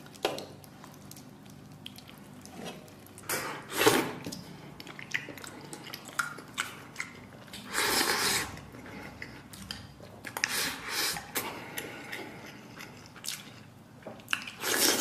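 Eating sounds: a soft, wet braised pork hock being handled and chewed, in scattered bursts with a few light clicks between them.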